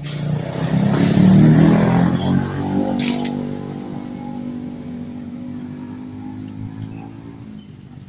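A vehicle engine revving up about a second in, then running on steadily and slowly fading.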